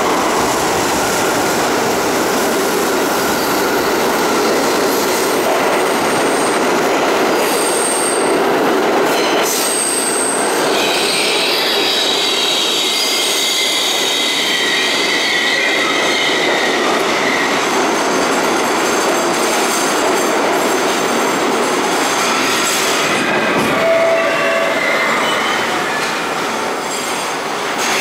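Budd-built R32 subway train pulling into an underground station: a steady loud rumble of steel wheels on rails, with a high-pitched metal squeal from about a third of the way in as it runs alongside the platform and brakes. The noise eases slightly as the train comes to a stop near the end.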